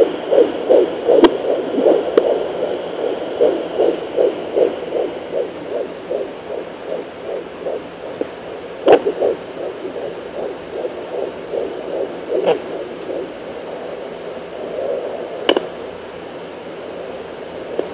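Fetal heartbeat heard through a handheld fetal doppler at 16 weeks: fast, even whooshing pulses, nearly three a second, strong at first and fading about halfway through. A few sharp knocks sound over it.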